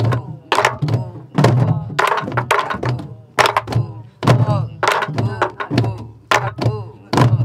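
A group of sori-buk (Korean pansori barrel drums) struck together with wooden sticks and open palms, playing a jangdan rhythm pattern of deep hand booms and sharp stick strokes. Steady rhythm of about one strong beat a second with lighter strokes between.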